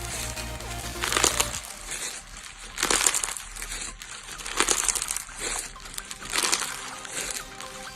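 Slime being squeezed and pressed, crackling and popping in bursts about every two seconds.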